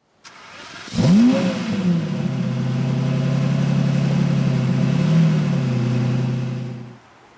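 A rising whoosh, then a car engine that blips once about a second in, its pitch sweeping up and back down. It settles into a steady run and fades out near the end.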